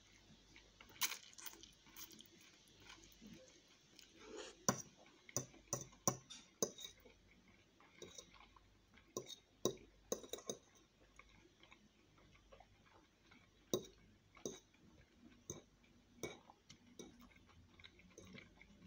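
A man chewing spaghetti, with a metal fork clicking and scraping against a ceramic plate in scattered sharp taps, most thickly in the middle stretch.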